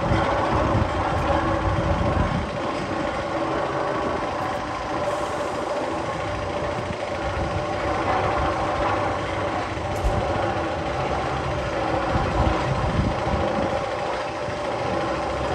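A roller-coaster tunnel sound effect playing: a steady heavy-engine drone with a low rumble and a few held tones.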